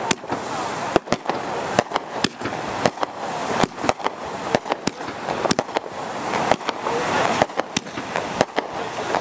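Fireworks going off: a rapid, irregular run of sharp bangs and pops, two to three a second, over a steady hiss.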